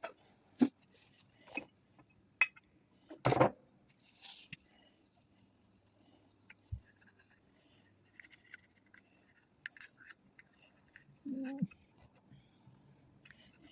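A chrome Zippo lighter case being handled and cleaned by hand: scattered small clicks and knocks, with two sharper taps in the first few seconds and short stretches of scrubbing and rubbing against the metal.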